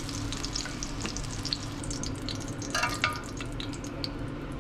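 Hot oil sizzling and crackling steadily in a stainless steel saucepan as flour-coated catfish chunks deep-fry. About three seconds in there is a short metallic clink of the tongs against the pan.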